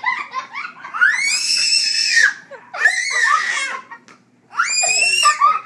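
Toddler screaming in three long, high-pitched shrieks, frightened of a small puppy chasing him.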